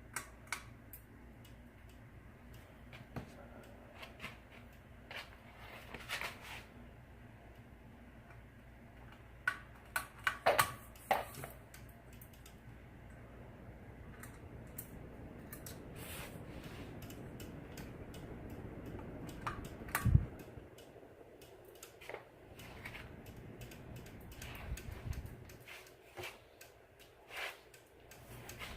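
Hampton Bay Southwind ceiling fan running on the floor with a low motor hum and scattered sharp clicks and ticks. A louder click comes about two-thirds of the way through, after which the hum largely drops away.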